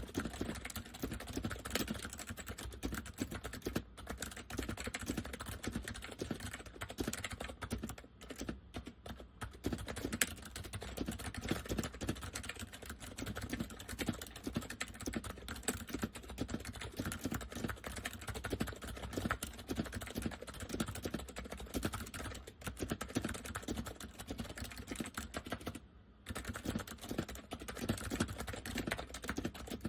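Steady, fast typing on an Acer 6312K7 keyboard with Acer semi-mechanical switches: a continuous run of key clicks and bottom-outs with a deep sound from the chassis, with a brief pause near the end.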